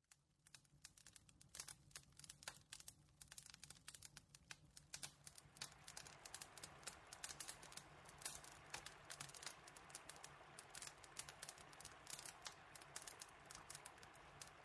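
Faint irregular crackling: many sharp clicks, sparse at first and much denser from about five seconds in, over a low steady hum.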